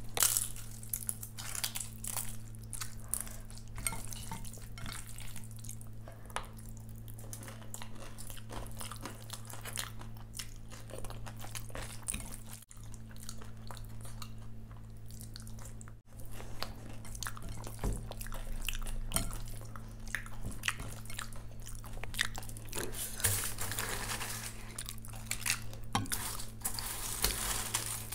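Close-miked eating by hand: fingers squishing and mixing curd rice against a glass bowl, and chewing, with many soft clicks and wet smacks. A steady low hum runs underneath.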